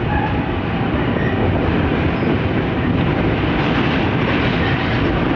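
Double-stack container freight train rolling past, its wheels running steadily over the rails.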